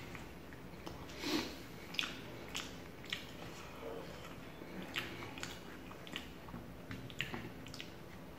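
A person chewing paratha with rajma curry, with about a dozen short, irregular mouth-smacking clicks.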